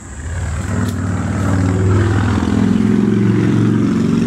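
Motorcycle engines passing by, swelling up over the first second, staying loud with a slowly shifting pitch, and dropping away at the end.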